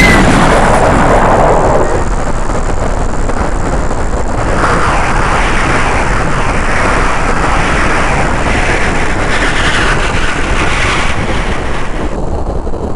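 Cartoon explosion sound effect: a loud rushing roar that starts suddenly as a high whistle cuts off, carries on as a steady rumble, and thins out near the end.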